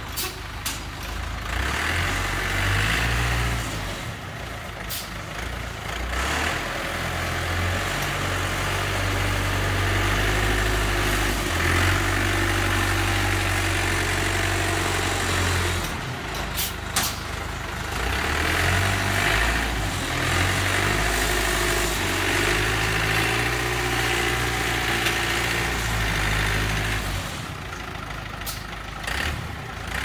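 Diesel engine of a self-loading concrete mixer running, its low note stepping louder and softer several times. A wavering whine comes and goes twice, with a few sharp clicks.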